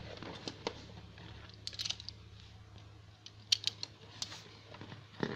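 Cardboard toy box with a clear plastic window being handled and opened by hand: scattered light clicks, taps and crinkles of cardboard and plastic, with a few sharper clicks a little past halfway.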